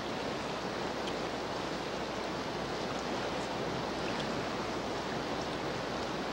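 Steady rushing of a fast river running over a rocky bed.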